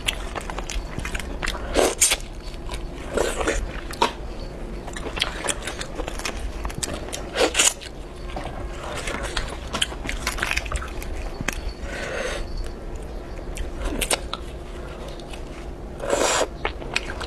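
Close-miked eating of boiled spicy crayfish: shells cracking and peeling in wet, sticky fingers with many small clicks and crackles, and chewing and biting at the mouth, with a few louder bursts.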